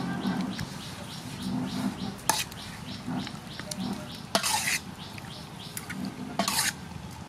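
Whole squid being mixed by hand with sauces in a bowl: continuous wet squishing and rubbing, with louder wet slaps or squelches about every two seconds.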